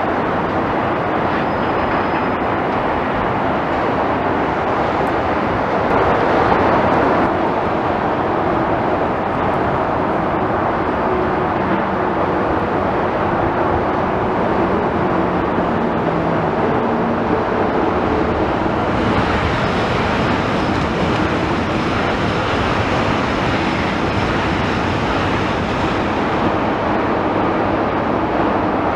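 Heavy demolition machinery running steadily, its engine tones rising and falling under a constant rumbling noise, with a louder surge about six seconds in.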